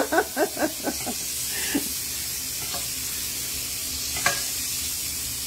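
Diced steak sizzling steadily in a frying pan, stirred with a spatula that scrapes the pan a few times, most sharply about four seconds in.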